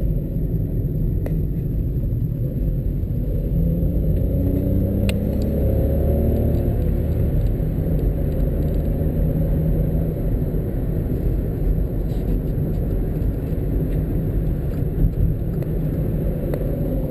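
Small car's engine and road noise heard from inside the cabin: a steady low rumble, with the engine note rising over the first several seconds as the car speeds up onto the motorway, then settling into an even cruise.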